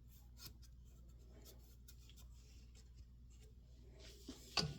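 Faint handling of a metal bench vise: light rubbing and small scattered clicks, with a sharper knock near the end.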